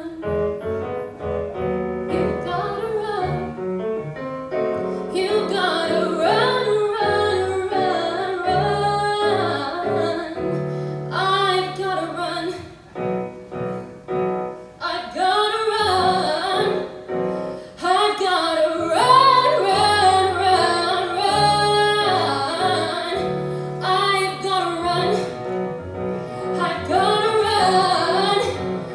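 A woman singing a musical-theatre song live, accompanied by piano.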